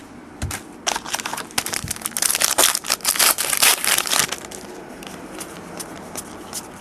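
Plastic wrapper of a trading-card pack crinkled and crumpled in the hands as the pack is opened, a dense run of crackling that fades about four seconds in.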